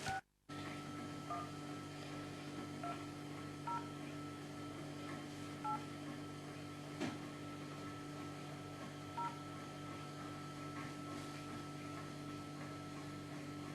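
Telephone keypad tones: five short two-tone beeps at uneven intervals as a number is dialled, over a steady low electrical hum, with a brief click about seven seconds in.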